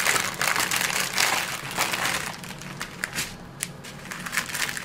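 Clear plastic bags crinkling and crackling as a packet of small bagged diamond-painting drills is unwrapped and the bags are laid out by hand. Dense crinkling that thins to a few lighter crackles after about three seconds.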